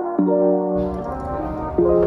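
Instrumental background music: soft sustained chords changing every half second or so, with a low, noisy layer coming in under them just under a second in.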